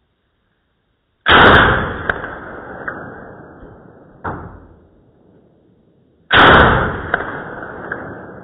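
Two shots from an SKS rifle in 7.62×39mm, about five seconds apart, heard slowed down: each is a deep boom that fades slowly over a few seconds. A smaller sharp thump falls between the two shots.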